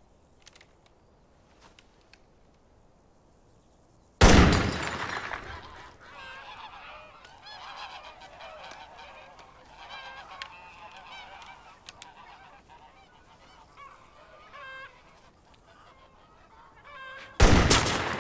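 A single sharp gunshot about four seconds in, echoing away over a second or two. A flock of birds then calls repeatedly, and a second loud shot comes near the end.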